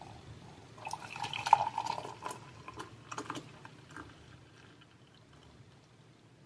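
Liquid pouring or splashing for about three seconds, with a scatter of light clinks and knocks, then dying away to quiet.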